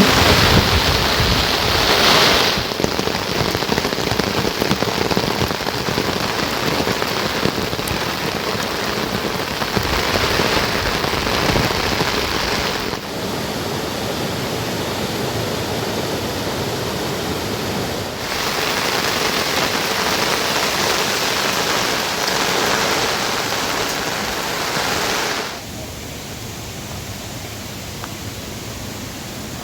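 Steady heavy rain falling, an even hiss that jumps abruptly in loudness and tone a few times.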